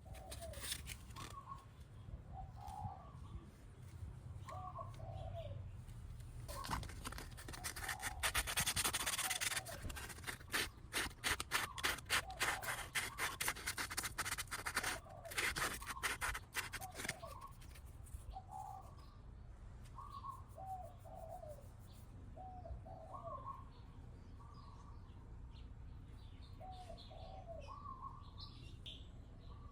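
Birds chirping in short repeated calls, with a stretch of rapid scratchy rubbing strokes from about seven seconds in that lasts about ten seconds, like a brush or abrasive scrubbing a part.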